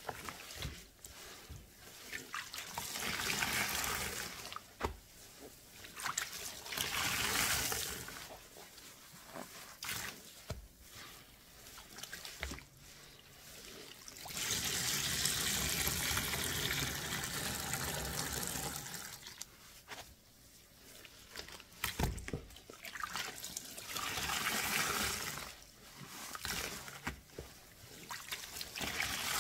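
Thick soapy lather of Fabuloso cleaner and dish soap being worked, soapy water trickling and pouring out. It comes in four runs of a few seconds each, the longest about halfway through, with small wet clicks between them.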